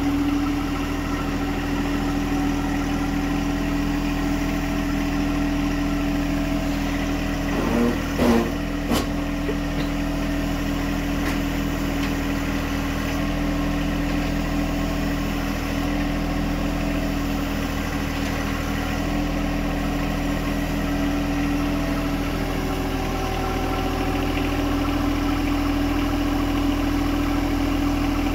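John Deere compact tractor's small diesel engine running at a steady speed while the tractor is manoeuvred, with two short knocks about eight seconds in.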